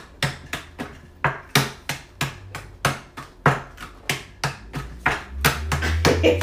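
Rapid hand claps and slaps in a clapping game between two people, a steady rhythm of about three sharp claps a second.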